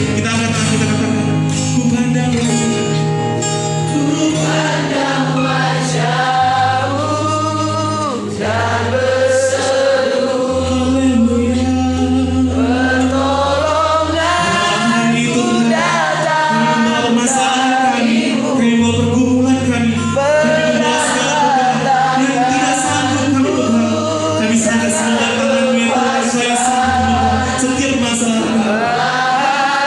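A singer performing a Christian worship song over an instrumental backing, with sustained bass notes under the melodic vocal line.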